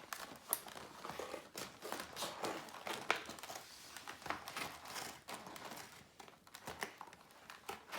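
Stiff plastic toy packaging being handled and cut with scissors, giving irregular crinkles, crackles and small clicks.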